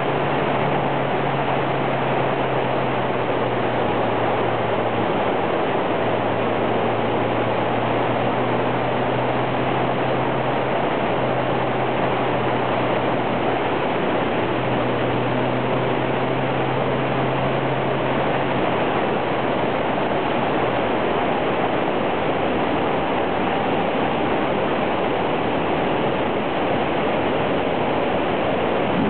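Wind rush and road noise on a camera mounted on a moving motorcycle, with the engine's steady low hum underneath. The hum drops away about two-thirds of the way through, leaving only the wind and road noise.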